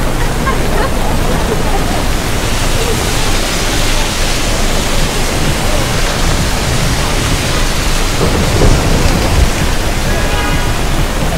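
Heavy rain falling on a city street, a loud, steady hiss with a low rumble underneath. A brief pitched tone sounds near the end.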